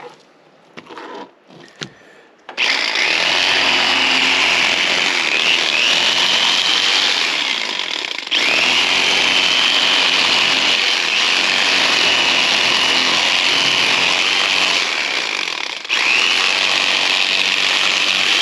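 Electric fillet knife running as fish are filleted: its motor switches on about two and a half seconds in, the whine rising briefly as it spins up, and runs steadily with two short breaks, starting up again each time.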